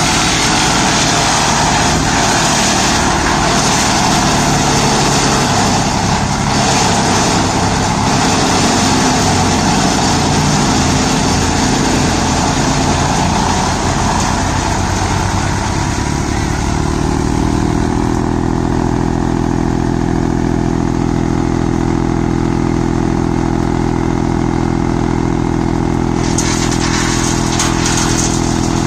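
Tractor-driven wood chipper running steadily, shredding green tree branches fed in by hand: a dense crackling hiss over the engine drone for the first dozen or so seconds, then easing to a steady engine and rotor hum with little shredding, before the shredding picks up again near the end.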